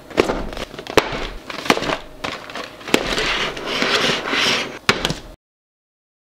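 Cardboard fried-chicken buckets being set down and stacked on a glass-topped table: several sharp knocks as they land, with rustling and scraping in between. The sound cuts off suddenly near the end.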